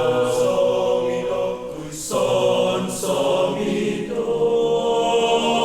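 A choir singing a cappella in long held chords, moving to a new chord about two, three and four seconds in.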